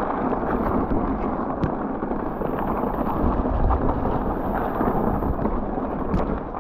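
A mountain bike riding fast down a trail: steady wind rush over the camera's microphone mixed with tyre and trail rumble, with a few small clicks and rattles.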